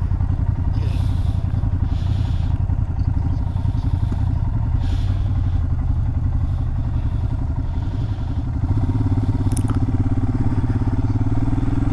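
Adventure motorcycle engine running steadily at low road speed, getting louder about nine seconds in.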